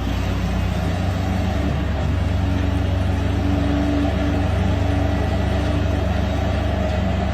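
A large engine running steadily with a low, continuous drone.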